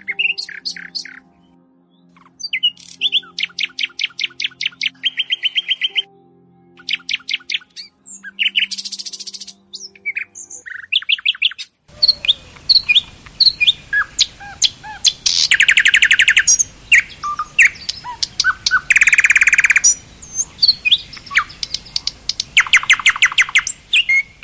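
Songbirds singing: fast trills and runs of rapid repeated chirps, with soft steady music tones underneath in the first half. About halfway through the sound changes to a noisier recording of similar trilling birdsong.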